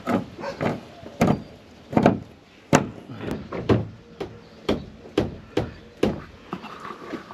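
Repeated knocks and clacks on the hollow plastic wall panels of a Suncast resin shed as they are handled and fitted together during wall assembly. The knocks are sharp with a dull hollow body, about two a second and unevenly spaced.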